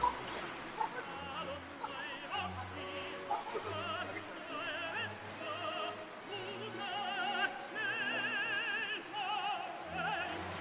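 High operatic singing with a wide vibrato, the notes held longer in the second half. A sharp click right at the start.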